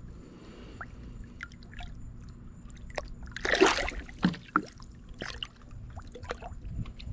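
Water dripping and lapping as a snook is held by the jaw in the water for release, with a louder splash about halfway through as the fish stirs the surface.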